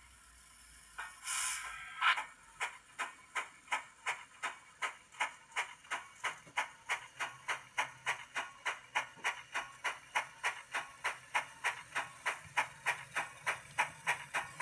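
7mm-scale model steam tank locomotive moving off: a short hiss of steam about a second in, then steady, even chuffing at about two and a half beats a second as it runs slowly along the track.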